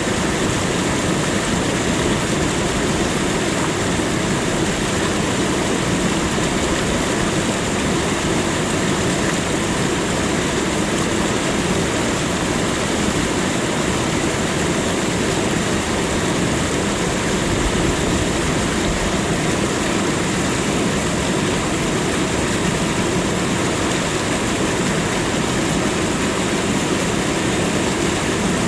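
Waterfall: water pouring and crashing into a pool in a loud, steady rush.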